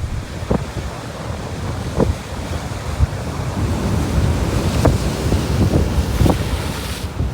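Ocean surf washing against shoreline rocks, with wind rumbling on the microphone and a few brief splashes or gusts standing out.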